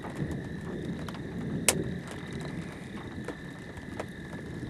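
Outdoor ambience under a storm: wind noise on the microphone with a faint steady high tone and scattered sharp clicks, the loudest click about a second and a half in.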